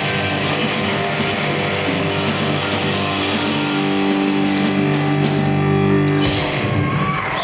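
Live rock band playing an instrumental passage: electric guitars and bass guitar ringing out over drums, with drum and cymbal hits coming thick and fast, and the sound changing about six seconds in.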